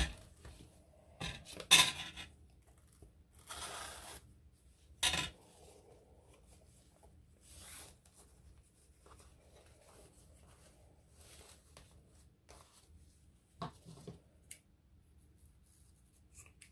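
Intermittent rustling and scraping of fabric and paper, with the loudest bursts about two and five seconds in, as a sari silk tie is wrapped around a handmade paper journal and knotted.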